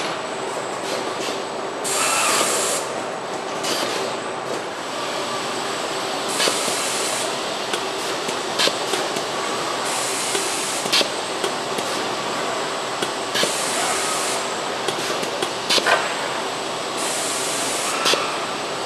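Car body-shop assembly line: a steady machinery noise with short hisses of compressed air every three to four seconds, five in all, and scattered sharp clicks.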